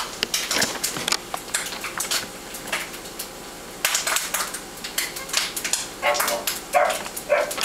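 Pit bull puppy giving a few short barks near the end, over scattered clicks and taps.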